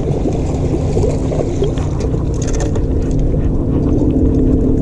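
Steady hum of a bass boat's electric trolling motor under wind rumbling on the microphone, with a few faint clicks about two seconds in.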